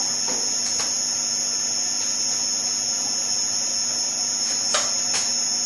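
Tormach PCNC 1100 CNC mill spindle running steadily at 2000 RPM: a constant high-pitched whine over a low hum, with a couple of light clicks near the end.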